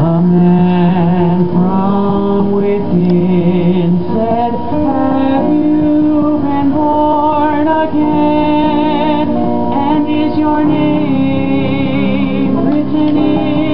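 Small group of men's and women's voices singing a church song, with wavering sung lines over steady instrumental accompaniment.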